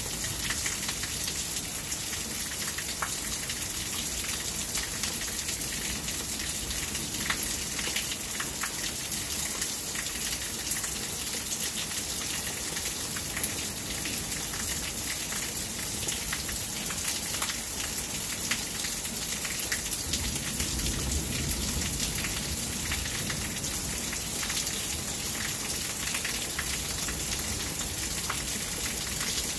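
Steady heavy rain falling on the yard and surfaces, an even hiss full of fine drop ticks. A brief low rumble comes in about twenty seconds in.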